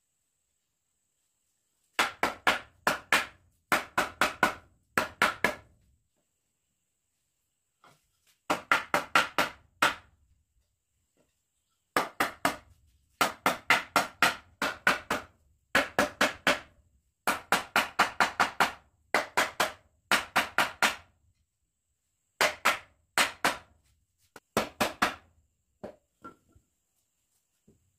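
Hammer driving nails into wood: runs of three to six sharp, ringing strikes, about two or three a second, with short pauses between runs. A few lighter single taps come near the end.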